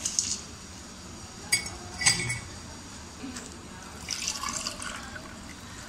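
A few sharp glassy clinks, then sattu drink poured from a jug over ice cubes into a glass tumbler, a splashing pour about four seconds in.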